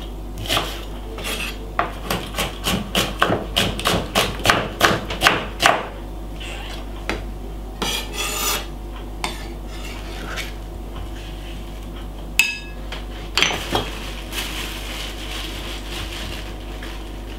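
Chef's knife chopping a white onion on a wooden chopping board: a quick run of knocks of the blade on the board for about six seconds, then slower, scattered knocks as the pieces are gathered. A brief ringing clink comes about two-thirds of the way in.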